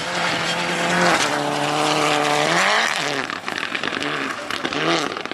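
Rally car engine at full throttle on a gravel stage. It holds a steady pitch, drops at a gear change about a second in, climbs again, and from about three seconds on the revs rise and fall rapidly over and over, with sharp crackles.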